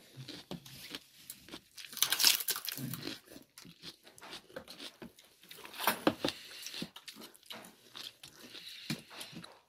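Eating at a table by hand: chewing and crunching bites of a rice meal with raw cucumber and radish, with scattered light clicks and rustles of fingers on plates. The loudest bites come about two seconds in and again around six seconds.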